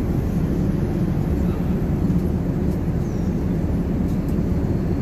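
Steady low rumble of a jet airliner's cabin in flight: engine and airflow noise heard from a passenger seat.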